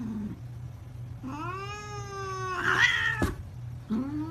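Domestic cats yowling: a long drawn-out meow that rises and then holds, ending in a short harsh spat, followed by a sharp tap and a second long meow starting near the end.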